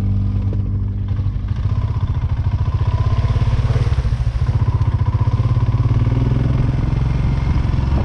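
Motorcycle engine running while riding, a low, evenly pulsing engine note that stays steady throughout.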